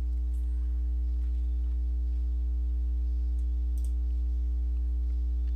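Steady low electrical hum with a buzzy row of overtones, picked up in the recording. Faint mouse clicks come near the start and about four seconds in.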